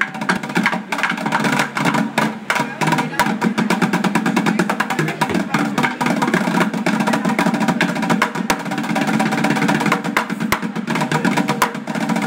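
Fire alarm sounding continuously: a rapid, clattering ring over steady held tones.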